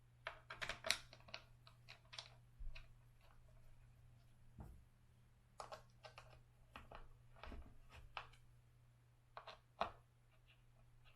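Faint, irregular clicks and taps of small screws and a hand tool being handled while fastening the long screws up through the bumper into an electric skateboard's foot pad, over a low steady hum.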